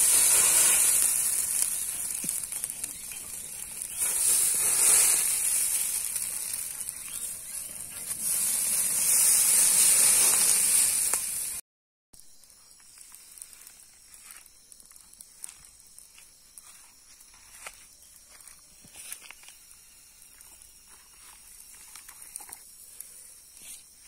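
Open wood fire under a wire-mesh grill: a loud hissing, crackling blaze that swells and eases about three times. After a cut about halfway through, the bed of glowing embers gives a much quieter hiss with scattered small pops and cracks.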